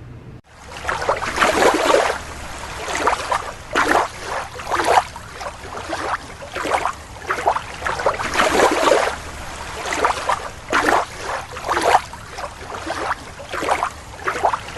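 Water sloshing and splashing in irregular swishes, one or two a second, as a toy green turtle is moved about in the water of a small tank. It starts abruptly about half a second in.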